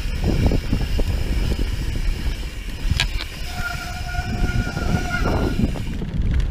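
Mountain bike brakes squealing: one steady pitched squeal lasting about two seconds, starting a little past the middle, just after a sharp click. Underneath is a constant low rumble of the tyres rolling down a dirt trail. The rider says it might be time for new brake pads.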